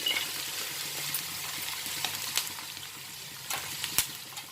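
Chopped vegetables (onion, capsicum and shredded cabbage) sizzling in hot oil in a kadai, with a few sharp taps of the spatula against the pan.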